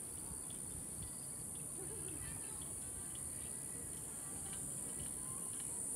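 Steady, high-pitched insect drone, a summer cicada chorus, with faint short chirps over it and a low rumble underneath.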